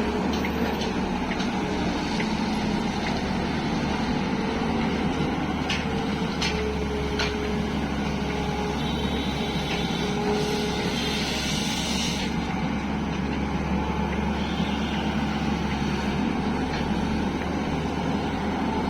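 Tata Hitachi EX 215 excavator's diesel engine running steadily while the machine works, with a few sharp knocks about six to seven seconds in and a stretch of hissing around the middle.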